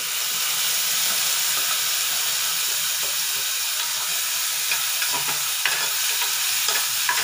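Chopped tomatoes loudly sizzling in hot oil with fried onions in a pan on high flame, a steady hiss. In the second half, a few clicks of a stirring utensil against the pan.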